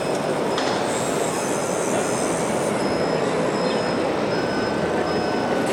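Scale RC construction machines running, a steady mechanical noise of electric motors and hydraulic pumps. A faint high-pitched beep repeats at an even pace, and a thin steady whine joins about four seconds in.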